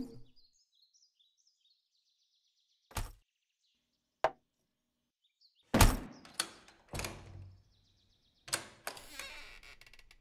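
Thunks and knocks of a flat case being handled and its lid opened on a wooden picnic table: one knock, a sharp click, then a cluster of heavier thunks in the second half. Faint bird chirps sound in the quiet first few seconds.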